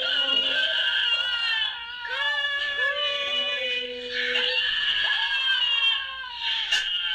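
Small white fluffy dog howling in a string of long, wavering notes that slide in pitch, with short breaks between them.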